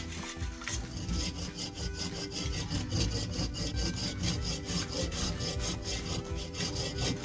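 Hand saw cutting through green, live wood in rapid, even back-and-forth strokes.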